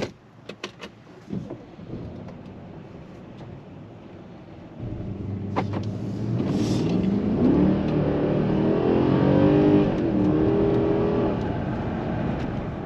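Mercedes-Benz S500L's 4.7-litre twin-turbo V8 accelerating hard under full throttle, its note climbing in pitch with tyre and road noise, starting about five seconds in after a few light clicks.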